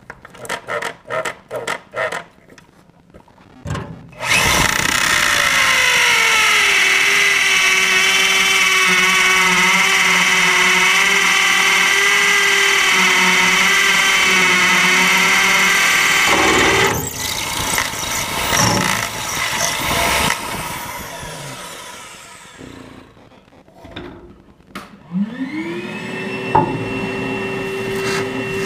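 Hammer drill boring into the concrete floor through a mounting hole in the safe's floor, running steadily for about twelve seconds, its pitch dropping as the bit starts to cut. It begins after a few short knocks, and near the end another motor spins up to a steady whine.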